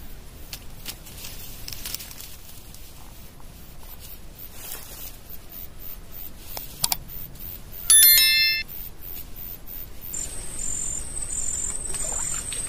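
A bright bell-like ding with several ringing overtones, about eight seconds in and lasting under a second, is the loudest sound. It comes shortly after a sharp click and is the sound effect of a subscribe-button animation. Insects chirp in the background, with a steady high pulsing chirp from about ten seconds in.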